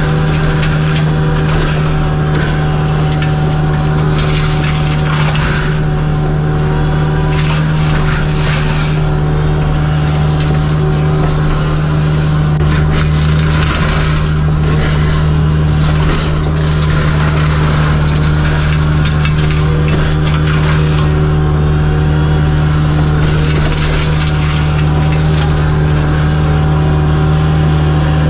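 Kubota U55-4 mini excavator's diesel engine running steadily under load while its hydraulic flail mower head shreds brush, with continuous crackling and splintering of wood over the steady drone.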